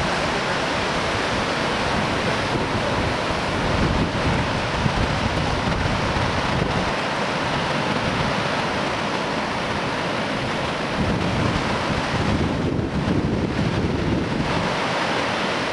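Surf breaking on a sandy shore, a steady rush of waves, with wind buffeting the microphone.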